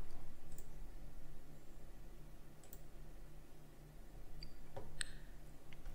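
A few faint, sharp computer mouse clicks, spread across a few seconds, over a low steady hum.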